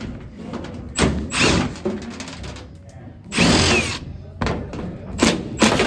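A power tool run in short bursts, three times, each about half a second to a second long, with sharp knocks and clatter in between, as old HVAC equipment is being torn out.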